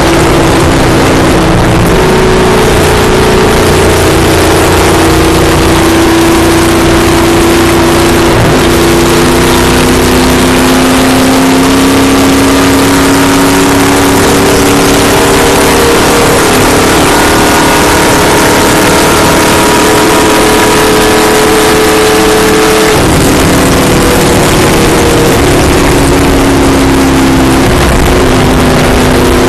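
Stock car's V8 engine at full throttle, heard from inside the cockpit at about 150 mph: a loud, steady drone that rises slowly in pitch, dips slightly about three-quarters of the way through, then holds, over heavy wind and road noise.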